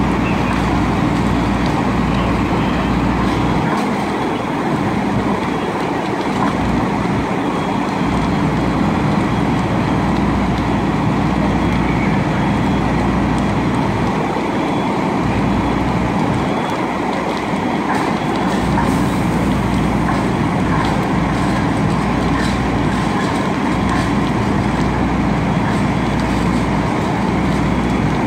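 Fire truck diesel engines running steadily at high idle, a continuous loud, low drone.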